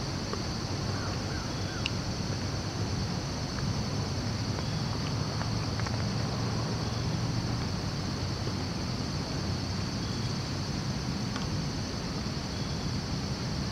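Steady high-pitched insect chorus over a low, even rumble, with a few faint ticks.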